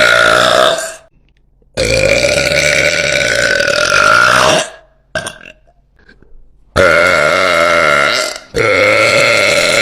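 A woman's loud, long burps, one after another. The tail of one ends just under a second in, then three more follow, each lasting about one and a half to three seconds at a steady pitch before breaking off abruptly.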